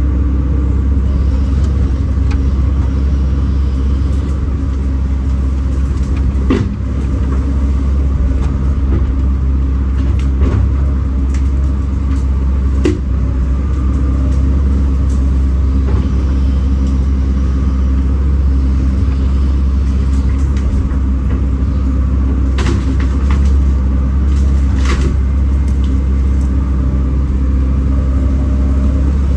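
Kobelco SK210 excavator's diesel engine running steadily with a deep hum, with a few short sharp knocks now and then.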